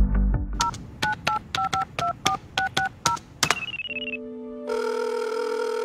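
Telephone keypad dialing tones (DTMF), about ten quick two-note beeps, followed by a brief warbling telephone ring. Steady held tones follow in the last couple of seconds.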